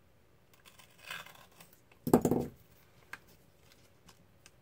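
Hobby-knife and painter's-tape work on a thin styrene sheet: a short scrape about a second in, then a louder crackling rasp of tape being worked against the styrene about two seconds in, and a single light tap after it.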